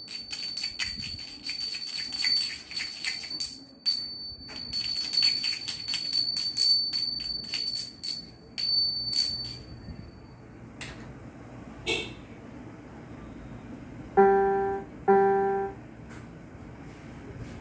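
A pair of small hand cymbals joined by a cord, clashed together rapidly and unevenly for about ten seconds, each clash ringing on with a high metallic tone. Near the end, two short notes of the same pitch are played on a toy electronic keyboard, about a second apart.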